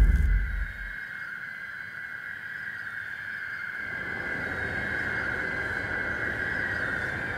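Horror-film sound design: a deep boom dying away in the first second over a steady high-pitched drone, with a hissing rumble swelling in from about halfway.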